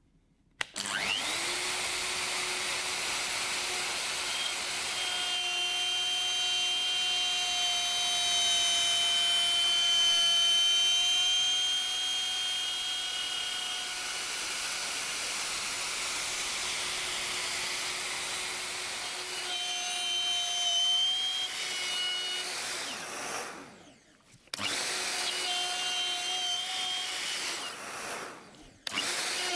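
Festool OF 1400 EBQ plunge router spinning up about a second in, then running steadily with a high whine as it routes a groove in plywood in 5 mm deep passes. The sound cuts out briefly twice near the end.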